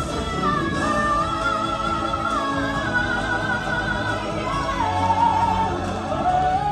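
Show music: a solo singer holds long, wavering notes over steady instrumental backing, moving to a lower held note a little past the middle.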